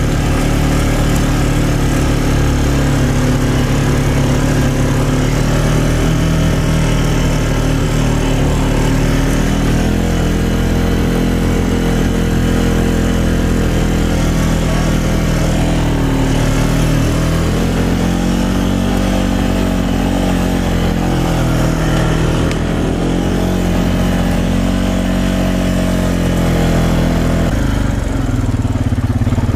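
ATV engine running while the quad is ridden along a forest trail, the revs rising and falling over and over with the throttle, and dropping lower near the end.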